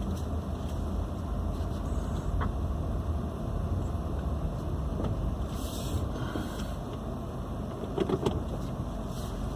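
Car driving, a steady low engine and road rumble heard from inside the cabin, with a couple of light knocks about eight seconds in.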